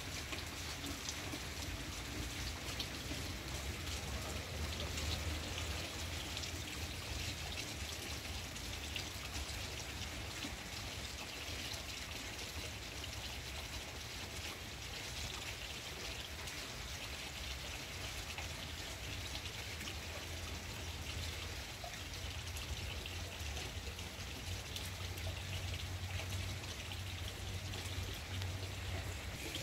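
Steady rain falling on broad garden leaves, an even hiss of drops with a low rumble underneath.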